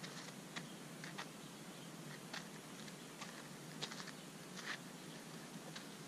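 Faint, irregular crunching clicks of footsteps on a dirt infield, over a steady low hiss.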